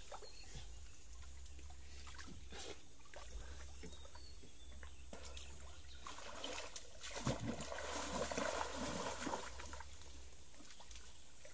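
Water sloshing and trickling around a person wading chest-deep in a river and groping along the bottom by hand for river shells. Mostly faint with a few light ticks, it swells into louder splashing about six seconds in and settles again some three seconds later.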